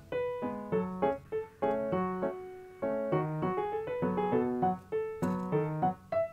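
Background piano music: a gentle melody with chords, notes struck every half second or so.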